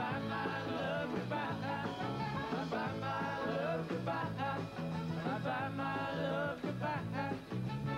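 Live band music: male voices singing over guitar and a steady bass line, with two singers sharing a microphone.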